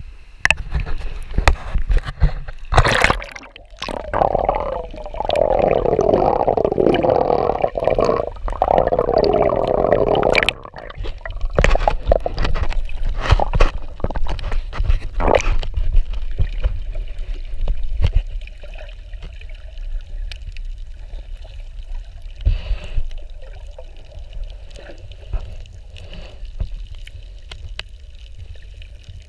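Water splashing and gurgling around an action camera at the sea surface and going under, with a dense spell of bubbling in the first ten seconds and many sharp knocks. After that it settles to a quieter, steady underwater hiss with scattered faint clicks.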